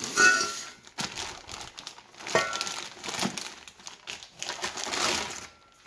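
Clear plastic bag crinkling and rustling in irregular bursts as a scooter exhaust pipe is pulled out of it.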